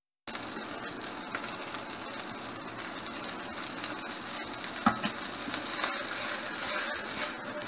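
Steamed Chinese noodles sizzling in oil in a wok while being stir-fried with a ladle, starting a moment in after a brief silence, with a sharp metal clink of the ladle about five seconds in.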